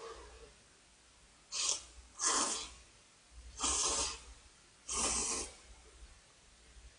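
A person slurping thick instant ramen noodles: four slurps, the first two close together, each a short hissing rush of air.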